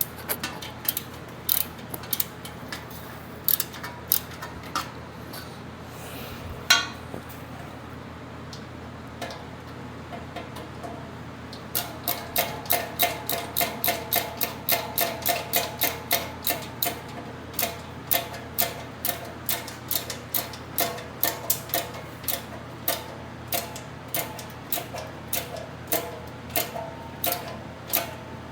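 Ratchet wrench clicking as the chair's bolts are tightened: a few scattered clicks at first, then from a little before halfway a steady run of about three clicks a second.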